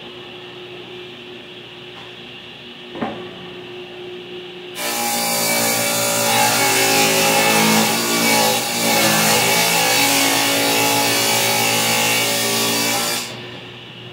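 Table saw ripping a long painted wooden board, its blade cutting loudly for about eight seconds from about five seconds in, then dropping back to a low steady hum. A single knock comes about three seconds in.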